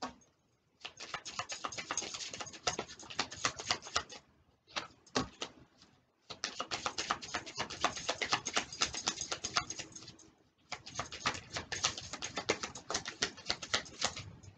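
A deck of oracle cards being shuffled by hand: rapid, dense card clicking in several long runs, broken by short pauses.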